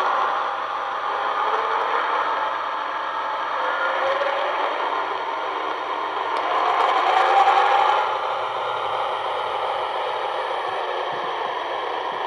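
Weaver brass O-scale Little Joe electric model locomotive running on test track under TMCC control: motor whir and wheels rattling on the rails, over a steady low hum. The running sound swells for a moment about two-thirds of the way through.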